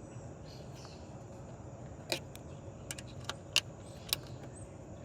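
An Allen wrench being fitted to the clamp screw on a Sprinter wiper pivot housing, making about five sharp small clicks from about two seconds in, over a steady low hum.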